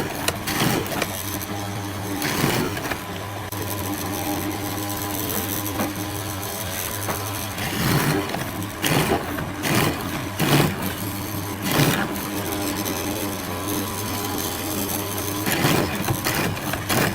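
A small motor running steadily, with several short, louder bursts of noise.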